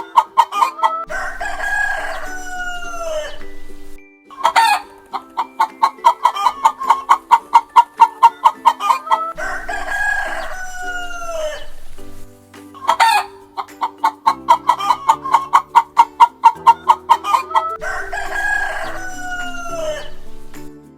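Chicken calls: a fast run of clucks followed by a longer crow that falls in pitch, the same sequence three times over, with soft background music underneath.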